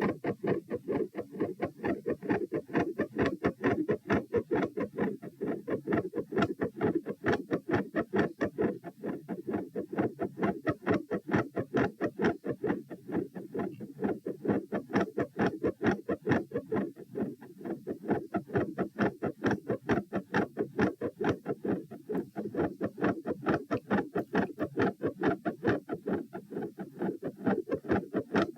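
A person's heart beating fast and regularly, about 132 beats a minute, each beat heard as a quick pair of dull thumps. The recordist labels the pattern a third heart sound and a fixed split second heart sound with a murmur, in a fast heartbeat brought on by standing.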